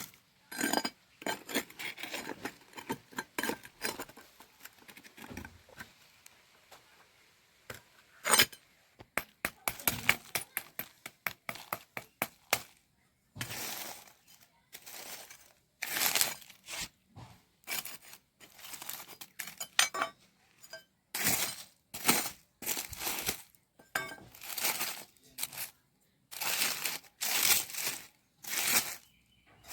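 Repeated crinkling and tearing of a crinkly wrapping being handled, in short strokes of a second or less with pauses between, and a few light clinks.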